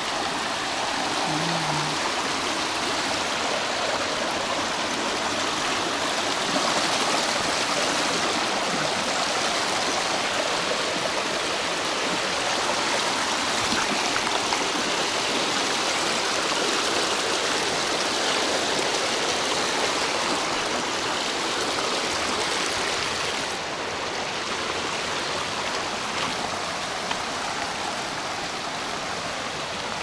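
Steady rush of flowing water, a little quieter about three-quarters of the way through.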